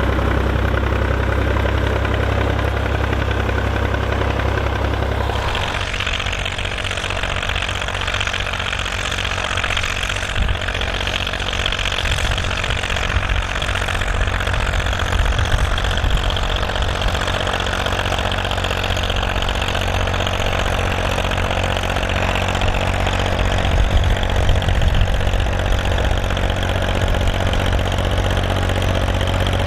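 Volvo BM farm tractor diesel engine running steadily under ploughing work. The engine sound changes abruptly about five seconds in, from a deep steady hum to a rougher, harder-working note.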